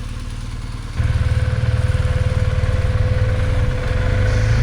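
BMW R1250GS boxer-twin motorcycle engine idling steadily, a low rumble that grows abruptly louder about a second in and then holds even.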